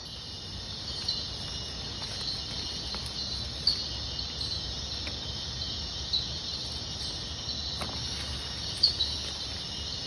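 Tropical rainforest insect chorus at night: a steady high-pitched trilling of crickets, with a few louder chirps standing out now and then.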